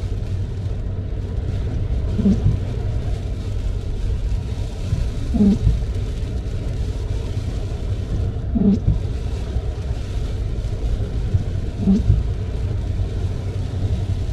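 Car windshield wipers on an intermittent setting, each sweep giving a short low squeaky groan about every three seconds, four times, over a steady low rumble of tyres and engine on a wet road. The groan is the sign of stiff, dragging wiper blades.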